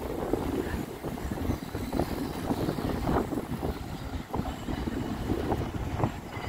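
City street traffic noise with wind buffeting the microphone in irregular gusts.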